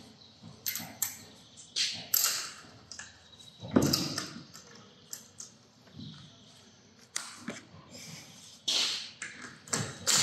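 Irregular knocks, taps and clinks of metal tools and parts being handled, the loudest a knock about four seconds in.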